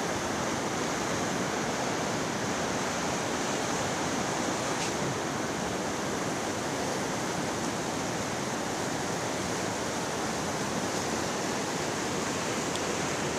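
Steady rushing of a swollen, muddy river in flood: fast water running under a footbridge.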